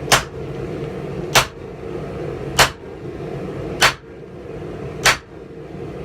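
Hammer blows on hot steel on an anvil: five single heavy strikes in a slow, even rhythm about one and a quarter seconds apart, over a steady hum.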